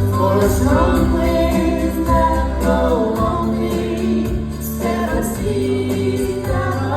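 A song sung over strummed acoustic guitar with a steady bass underneath.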